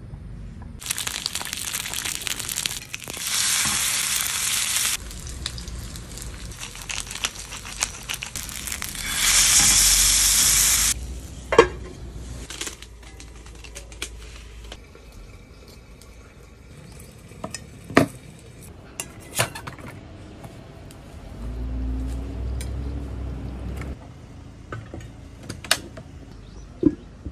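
Smoked pork belly sizzling on a hot griddle pan over a portable gas stove for about ten seconds, then stopping abruptly. Afterwards come a few scattered sharp knocks and clicks of cookware.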